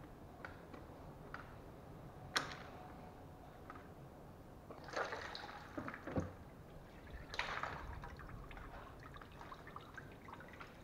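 Transmission oil splashing and dripping as the CVT oil pan of a 2011 Toyota RAV4 is lowered off the gearbox with oil still in it, with a sharp metallic click about two seconds in and a couple of knocks from the pan. The splashing comes in two spells, around the middle and a little later.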